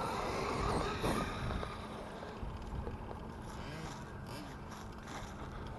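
1/5-scale radio-controlled trucks running, their motors revving up and down in short rising-and-falling swells over a low rumble.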